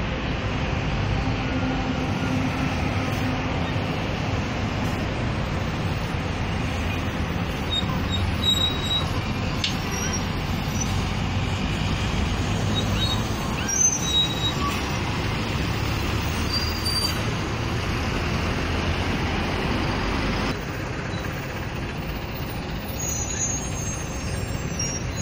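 Busy city-street traffic: a steady rumble of buses and cars, with a few short high squeals in the middle and a slight drop in level near the end.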